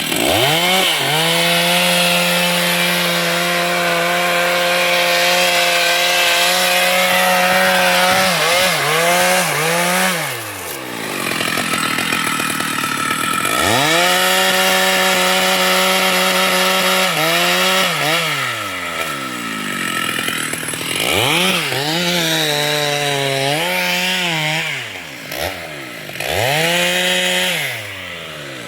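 Chainsaw cutting wood at full throttle: a steady high engine note that is let off and revved up again several times, with falling and rising revs, and a lull of about three seconds near the middle.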